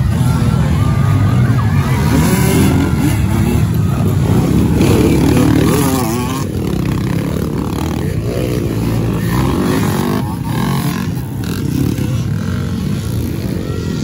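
Motocross dirt bike engines running and revving, their pitch rising and falling repeatedly as the throttle opens and closes.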